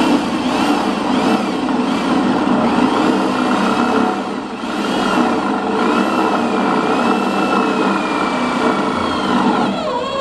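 Cordless drill driving a self-drilling screw through steel sheet-metal trim: the motor runs steadily under load with a wavering whine, then winds down near the end as the screw seats.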